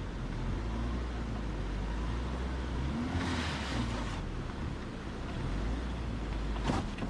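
Mahindra Scorpio S11's diesel engine running low and steady. There is a brief rush of noise about three seconds in and a single sharp knock near the end.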